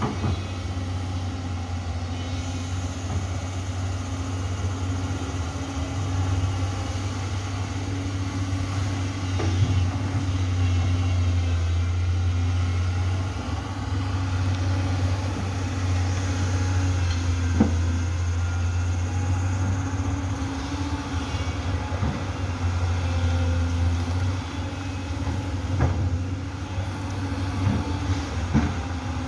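Heavy diesel engine of an amphibious excavator running steadily under load, with a few sharp knocks.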